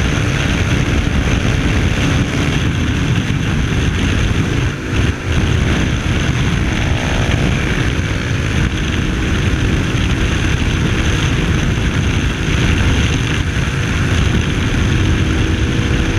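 Ducati Hypermotard's L-twin engine running hard at highway speed, with wind and road rush over the microphone. The level drops briefly about five seconds in, then the engine note carries on steadily.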